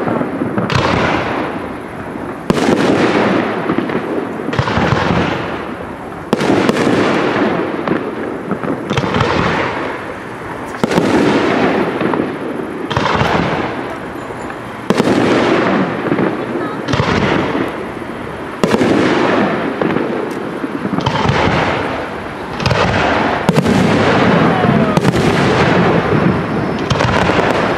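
Aerial firework shells bursting one after another in a professional display, a bang roughly every one and a half to two seconds, each one fading out in a rumble before the next.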